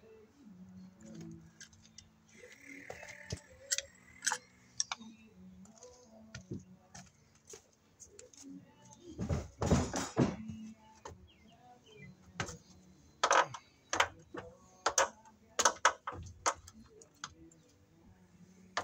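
Scattered clicks and knocks of hand work: a metal electrical box and 14-2 Romex cable being handled and fed through an opening in wood siding, with a longer rustling scrape about halfway through.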